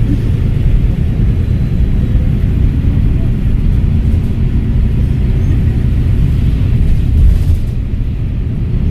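Volvo B7RLE bus's straight-six diesel running under way, a steady low rumble with road and body noise, and a brief louder rattle about seven seconds in.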